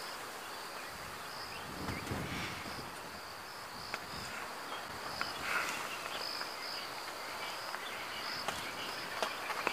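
Insects chirring steadily in a high, pulsing band of bush ambience, with a brief low gust of wind on the microphone about two seconds in.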